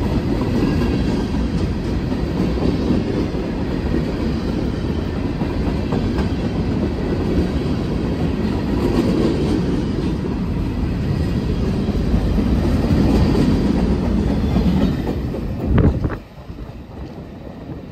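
Freight train cars, mostly covered hoppers, rolling past at close range: a steady rumble of steel wheels with clickety-clack over the rail joints. A short loud burst comes as the last car passes, about sixteen seconds in, and the sound then drops away sharply.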